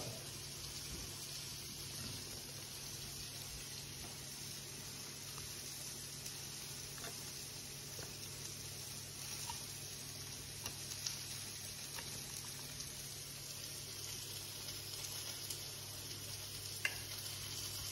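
A knife scoring slits into a whole raw snapper on a plate, heard only as a few faint ticks against a steady background hiss and low hum.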